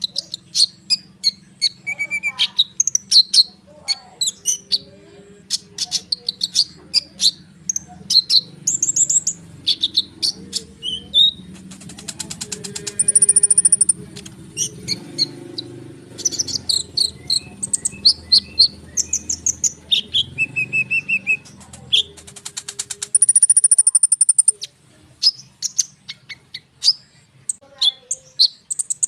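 A konin songbird singing in a continuous, dense rolling song: quick high chirps and whistles without a break, with two long rattling trills, one about halfway through and one near the end.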